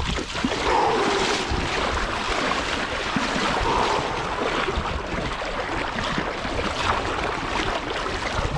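Lake water sloshing and splashing steadily as people wade into it for a cold-water swim.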